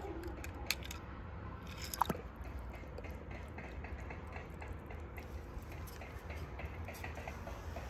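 A camera dipped into pool water: a faint, steady low rumble with many small clicks and crackles, and a sharper click about two seconds in.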